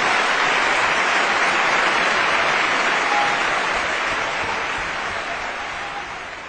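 Audience applauding, a steady dense clapping that fades out gradually over the last few seconds.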